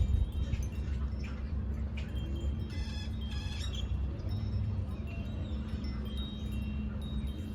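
Wind chimes ringing: scattered clear high notes, with a denser cluster about three seconds in, over a steady low rumble.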